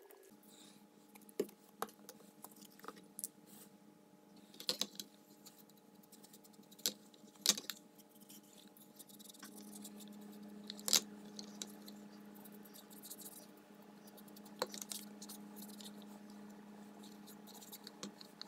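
Close handling sounds of a wool dauber rubbing acrylic sealer into a leather holster, with scattered sharp clicks and taps as the leather and tools are handled. A steady low hum runs underneath.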